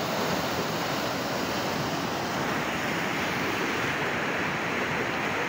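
Muddy floodwater from a heavy-rain flash flood rushing past in a fast, swollen torrent: a steady, even rushing noise.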